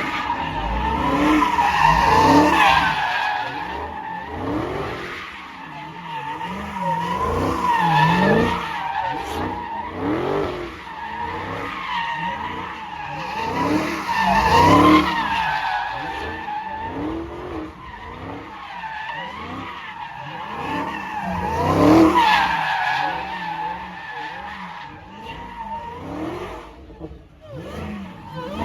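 A car's engine revving up and down over and over with tyres squealing, as in donuts or a burnout. The sound swells loudest about 2, 8, 15 and 22 seconds in.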